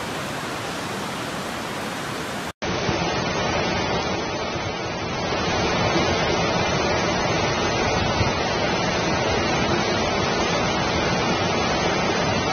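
Steady rushing of floodwater. After a sudden cut about two and a half seconds in, a louder, deeper rushing from a swollen river in full spate.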